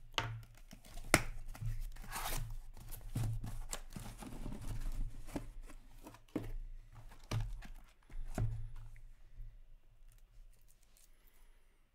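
Packing tape and cardboard being slit and torn open with a box cutter, with boxes being handled and plastic wrapping crinkling, and scattered sharp knocks, the loudest about a second in. The handling dies down over the last few seconds.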